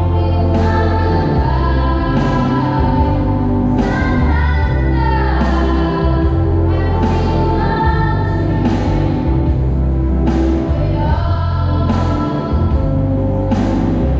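Voices singing a Christian song through microphones, accompanied by an electronic keyboard playing a strong bass line over a steady beat.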